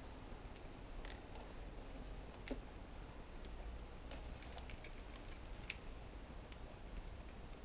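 Faint, scattered plastic clicks and taps, the clearest about two and a half and six seconds in, from hands handling the external ink tanks of a continuous ink supply system and fitting rubber plugs into their air holes.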